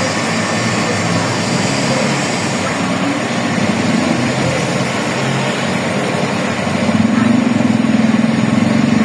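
Car engine running steadily, with a low hum that grows louder about seven seconds in.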